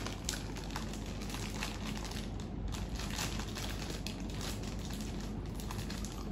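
Clear plastic packet crinkling and crackling as it is handled in the hands, in a steady run of small irregular crackles.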